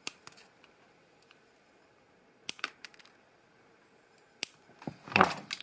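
Flush-cut side cutters snipping the wire leads of electrolytic capacitors flush with a circuit board: a series of sharp, separate clicks, with a louder brief noise near the end.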